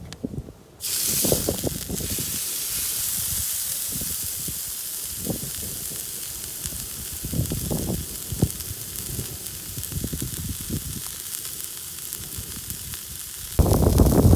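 Beef steak sizzling in a hot pan: a steady hiss that starts suddenly about a second in, with a few low knocks and rustles of handling. Near the end, wind blowing on the microphone takes over.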